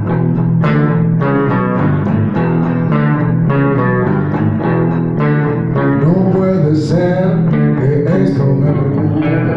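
Live acoustic guitar strummed in a steady rhythm with an electric bass guitar playing a bass line underneath.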